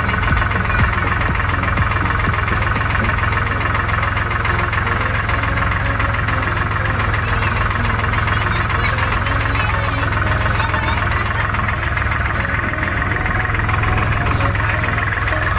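Tractor's diesel engine running steadily with a continuous low knocking chug.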